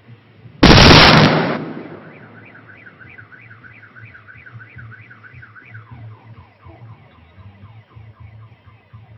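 A single very loud explosion about half a second in, dying away over about a second. A car alarm is set off by the blast and sounds a warbling siren at about three cycles a second, switching to a repeating falling sweep about six seconds in.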